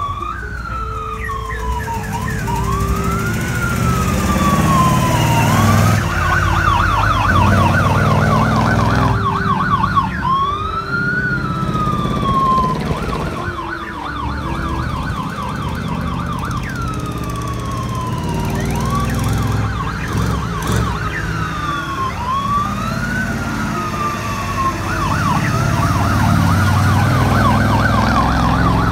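Electronic siren on a monster-truck school bus, switching several times between a slow rising-and-falling wail and a fast yelp, over the low rumble of the truck's engine.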